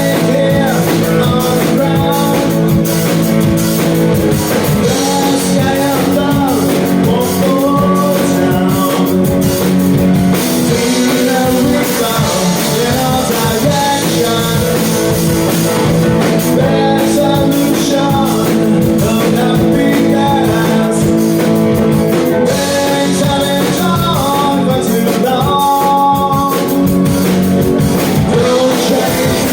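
Rock music with a singer, guitar and drum kit playing steadily.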